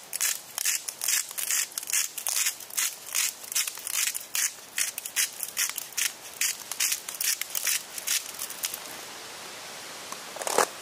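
Salt being crushed or ground by hand in rhythmic crunching strokes, about three a second, stopping about nine seconds in; one louder knock near the end.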